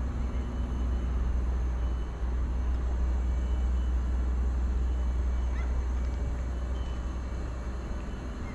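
A steady low rumble, with a few faint short chirps above it.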